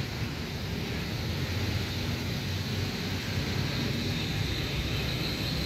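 Wind buffeting the microphone: a steady low rumble, with no distinct events standing out.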